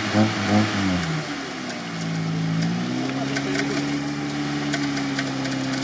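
UAZ Patriot SUV's engine working as it pulls through deep swamp water. The engine note pulses for the first second, drops, then rises a little and holds steady.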